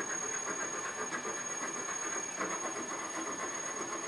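Wood lathe running with a steady hiss, a thin high whine sitting above it.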